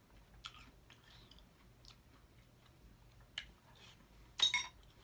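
Watermelon being bitten and chewed: a few short, scattered wet crunches, the loudest about four and a half seconds in.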